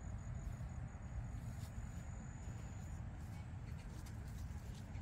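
Outdoor pond-side ambience: a low rumble, with a thin, high, steady insect trill that stops about three seconds in.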